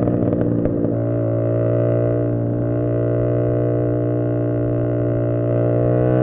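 Tuned CFMoto 450SS parallel-twin motorcycle engine holding a steady, droning engine speed while riding, with a few sharp crackles in the first second. Near the end the pitch starts to rise as the bike accelerates.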